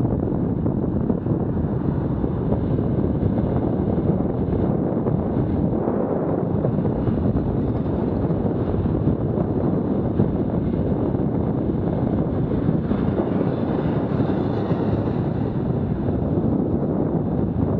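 Wind buffeting the camera microphone on a moving bicycle, with steady road and traffic noise underneath.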